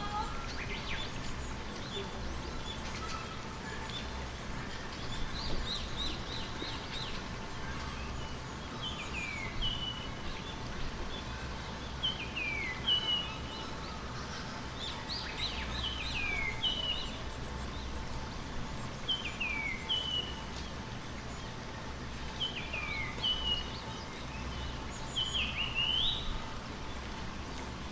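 A bird singing short phrases of chirps that slide down in pitch, repeated about every three seconds, over a steady low background hum.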